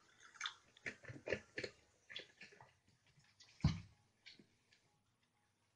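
Juice being poured from small plastic bottles into a cup, with a string of clicks and knocks as the bottles are handled and set down; a louder knock comes about three and a half seconds in.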